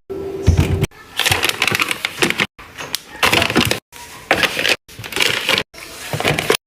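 Snacks and drinks being handled and set into place while restocking a fridge: quick clicks, clatter and crinkling plastic packaging, broken off by several abrupt cuts.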